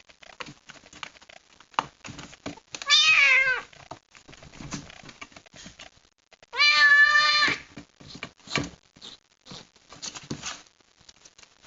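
A kitten meowing twice, loud and plaintive: the first call falls in pitch, the second is held steady for about a second. It is distressed at being shut in a box. Faint scattered knocks and scratches come between the calls.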